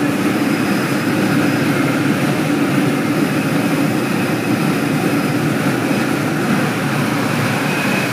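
Passenger train running slowly through a station: a steady engine and running-gear drone, with a faint high whine that comes and goes.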